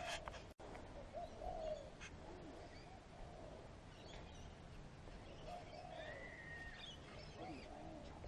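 Faint, scattered bird calls: short chirps, and one longer higher call about six seconds in, over a low background hum.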